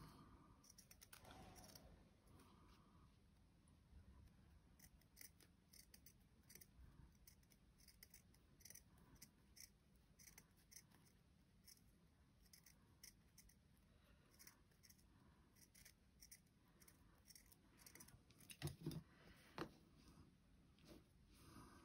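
Small scissors snipping through a scrap of cotton fabric, a run of faint, quick snips. Near the end come a few louder knocks as the cut piece is handled.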